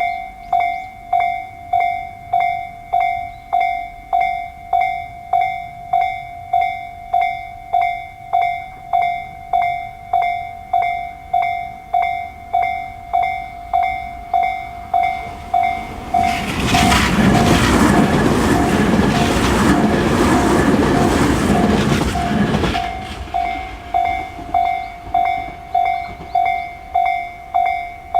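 Japanese level-crossing electronic warning bell of Tobu's slow-tempo 'sound C' type, ringing a single clear tone a little under two strikes a second. About sixteen seconds in a train passes for roughly six seconds, its rumble covering the bell, which is heard again after the train has gone.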